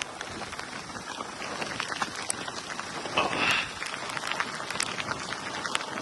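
Heavy rain pouring down, with many sharp drop impacts ticking against a nearby surface over a steady hiss. About halfway through there is a brief louder rush.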